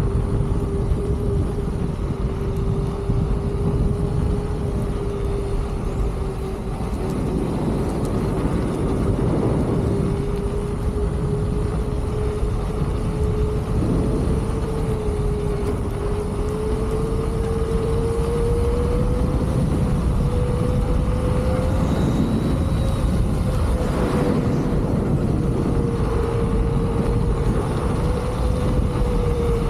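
Leaperkim Lynx electric unicycle's hub motor whining at a steady pitch that creeps slowly upward, over a dense low rumble of wind and road noise.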